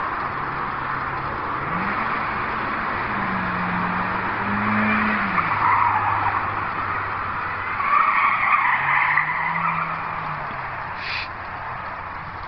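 A car drifting: its engine revs rise and fall several times while the tyres squeal, loudest in two spells about midway and about two-thirds through.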